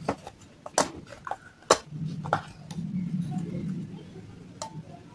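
Steel spoon clinking sharply against a steel bowl of thick white paste, five or so scattered clinks with the loudest a little under two seconds in, and a soft low rumble of the paste being stirred in between.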